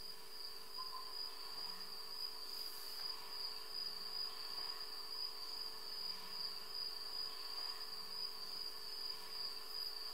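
Crickets chirring in a steady, high-pitched trill, heard through a television's speaker, with a faint steady hum underneath.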